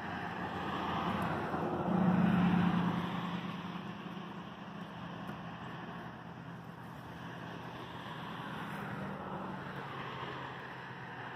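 A motor vehicle going by: a rushing swell that is loudest about two to three seconds in, with a steady low engine hum that lingers and fades near the end.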